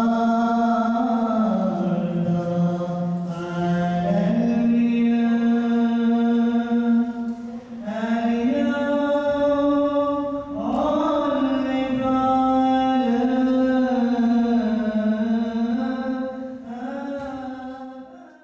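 Orthodox liturgical chant: a slow sung melody of long held notes that steps up and down in pitch, fading out near the end.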